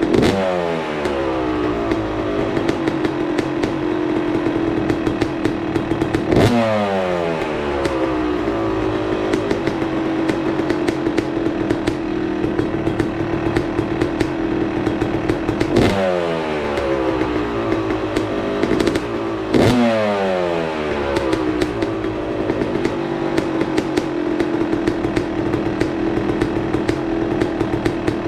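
A 2024 Yamaha YZ250's single-cylinder two-stroke engine idling with a crackling tick, blipped four times, each rev falling quickly back to idle.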